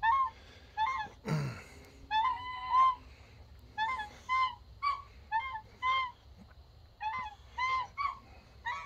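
Domestic white goose giving a run of short, soft honks, about fifteen spaced irregularly, some in quick pairs.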